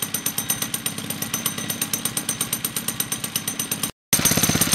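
Mini bike's small single-cylinder engine idling with a rapid, even beat while it warms up, running with its leaking gasket freshly sealed with flexible gasket sealer. The sound cuts out for a split second about four seconds in and comes back louder.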